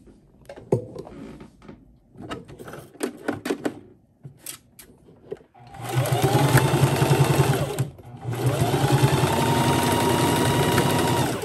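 Light clicks and fabric rustling, then an electric sewing machine stitching a seam in two runs of a couple of seconds each, with a short stop between. Its motor whine rises as it speeds up at the start of each run, over a fast steady needle chatter.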